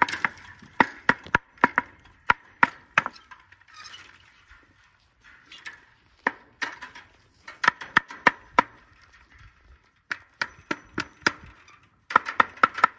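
Hammer striking metal fittings on a wooden fence post in quick bursts of blows, each blow with a short metallic ring, to work loose the taut chain holding up the fence.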